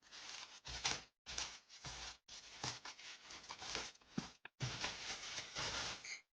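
Packaging rustling and crinkling as a parcel is handled and opened, in irregular bursts with several brief silent gaps.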